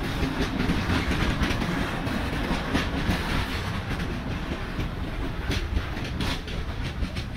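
Freight train of loaded flat wagons rolling past at close range: a steady low rumble with many irregular clicks and clacks as the bogie wheelsets run over the track.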